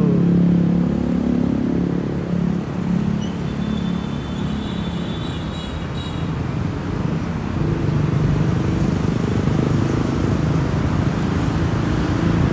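Steady road traffic, with cars and motorcycles running past in a continuous low rumble.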